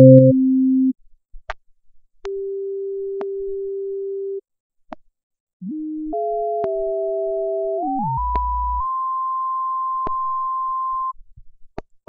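Steady synthesizer tones from an LMMS Triple Oscillator patch, playing in stretches of a few seconds with clicks in the gaps. About halfway the tones step apart in pitch in small jumps as the oscillators' coarse detuning is turned, one climbing to a higher steady tone that holds until it cuts off near the end.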